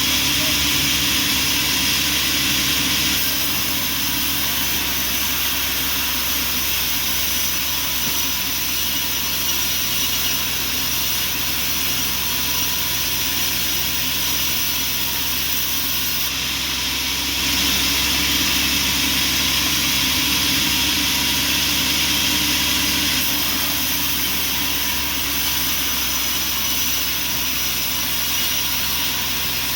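Band sawmill machinery running steadily: a continuous mechanical drone with several steady hum tones. The sound changes slightly about three seconds in and again around seventeen seconds.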